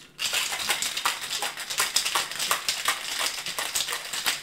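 Ice rattling hard inside a cocktail shaker being shaken vigorously, a fast, steady clatter of many knocks a second that starts about a quarter of a second in.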